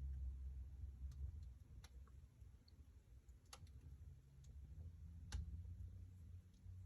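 Wood fire burning in a fireplace: faint crackling with about four sharp pops, the loudest near the end, over a low steady rumble.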